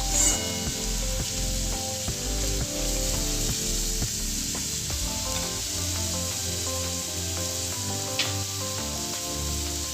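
Onions sizzling as they fry in hot refined oil in a pan, a steady crackling hiss with a few light clicks, under background music.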